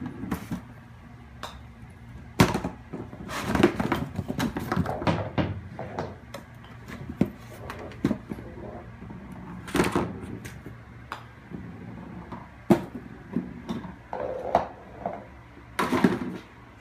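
A kitten batting at an indoor putting mat's plastic cups, holes and golf balls: irregular knocks, taps and rattles, with a loud knock about two and a half seconds in and clusters of clatter around four, ten and sixteen seconds in.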